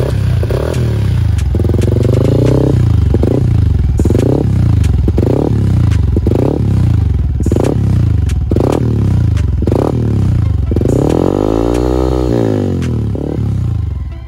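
Yamaha Y15ZR 150 cc single-cylinder four-stroke engine with stage 2 parts, revved in place: a quick run of short throttle blips, roughly two a second, each snapping up and falling back, then one longer rev about eleven seconds in that climbs and drops. The engine is on the standard ECU, which the owner blames for ignition and fuel settings that don't suit the modifications.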